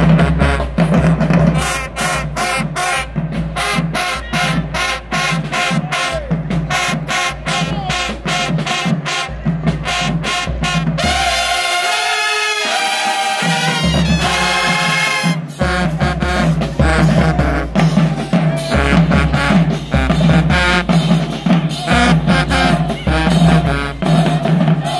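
Marching band playing a loud, driving stand tune: sousaphones, trumpets and trombones over bass drum and snare. About eleven seconds in, the drums and low brass drop out for a few seconds while the upper horns play alone, then the full band comes back in.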